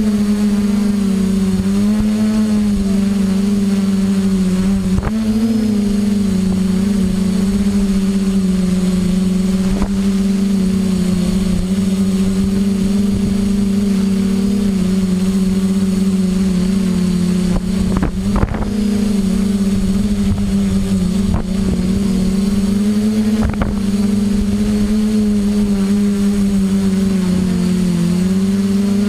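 Home-built drone's motors and propellers, a loud steady hum heard from the camera aboard it, its pitch wavering slightly as it holds position.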